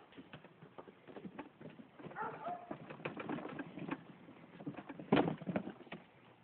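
Footfalls on packed dirt, with a short bird call about two seconds in and a heavier thud about five seconds in.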